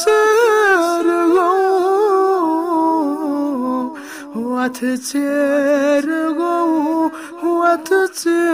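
A solo male voice sings a Kashmiri nazm unaccompanied, with long held, ornamented notes and a short break for breath about four seconds in.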